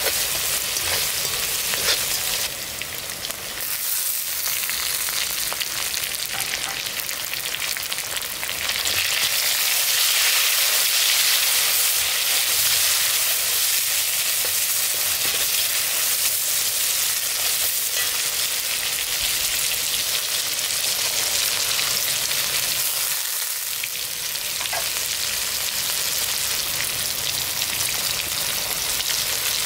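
Sliced onions, green chillies and tomatoes sizzling in hot oil in a large metal wok, stirred with a perforated metal spatula. The steady hiss grows louder about nine seconds in.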